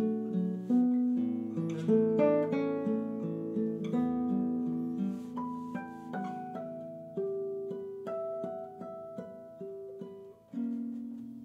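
Nylon-string classical guitar played fingerstyle: plucked notes and arpeggiated chords that ring and fade, busy at first, then sparser and longer-held in the second half. The sound drops away briefly near the end before a new chord is struck.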